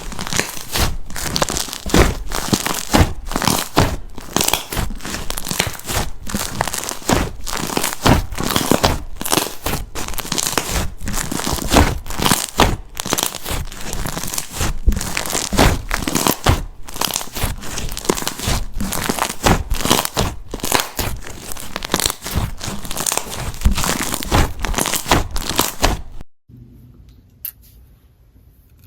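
Jelly slime being squeezed and worked by hand: a dense, irregular run of wet crackling and popping. It stops abruptly near the end, leaving a faint low hum.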